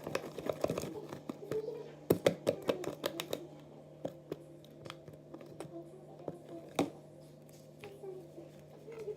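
Sticky slime being kneaded and squeezed by hand, giving irregular wet clicks and snaps that cluster about two seconds in, with one sharp snap near the end, over a steady low hum.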